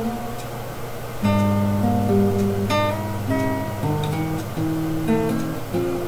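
Acoustic guitar being played, strummed chords and sustained notes moving through a progression, getting louder about a second in.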